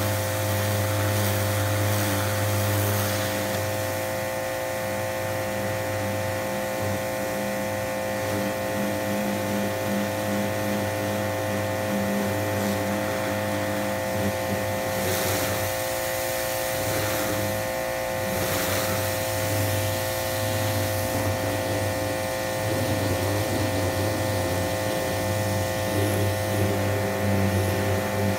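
Electric 2000 PSI pressure washer running with a steady motor hum, its spray hissing against the wooden fence.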